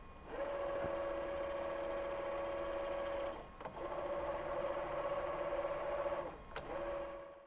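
Column drilling machine's spindle motor running with a steady whine, cutting out briefly with a click twice and starting again: the automatic reversing switching the spindle's rotation direction at the set depth for tapping.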